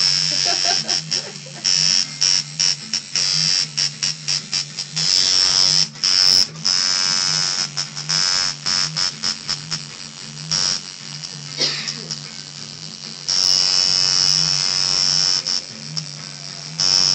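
Coil tattoo machine buzzing with a steady low hum as its needle works into the skin. It is run in many short on-off bursts, with a couple of longer runs, about five seconds in and again past the middle.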